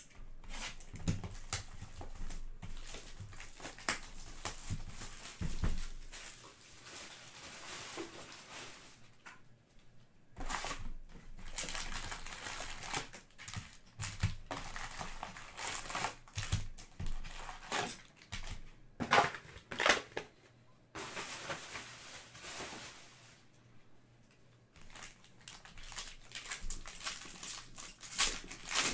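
Crinkling and rustling of cardboard boxes and foil trading-card packs being handled, opened and torn open by hand, with a couple of louder crackles about two-thirds of the way through.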